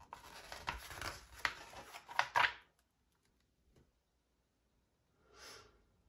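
Paper pages of an instruction booklet being turned and smoothed flat: rustling and sliding for about two and a half seconds, loudest at the end of the turn, then a brief soft swish about five and a half seconds in.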